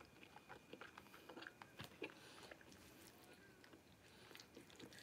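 Faint chewing of beef stir-fry noodles, with small wet clicks scattered throughout.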